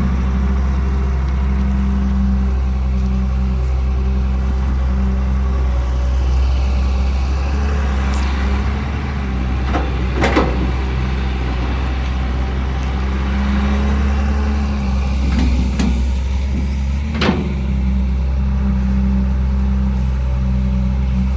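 Caterpillar E200B excavator's diesel engine running steadily, with a few sharp knocks over it: one about eight seconds in, the loudest about ten seconds in, and another about seventeen seconds in.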